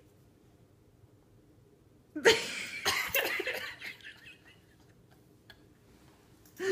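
A man laughing in a sudden burst of about two seconds, starting about two seconds in, between quiet stretches, as he wrestles playfully with a dog.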